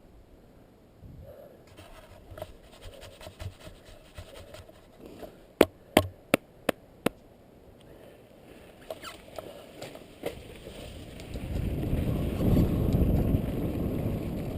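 Scattered light clicks of gear handling, with five loud sharp clicks in quick succession near the middle. In the last few seconds a low rushing of wind and sliding on snow builds up as the rider gets moving.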